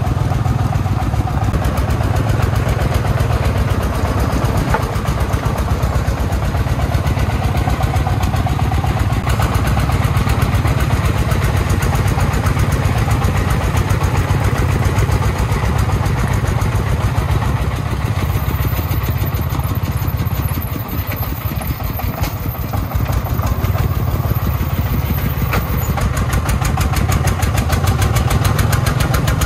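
Diesel engine of a công nông dump truck running steadily as it drives loaded with soil, with a slight dip in loudness about two-thirds of the way through.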